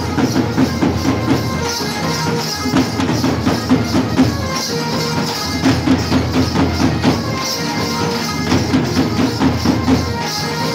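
Folk percussion music: small hand-held drums struck with curved sticks in a quick, steady rhythm, with jingling over the beat.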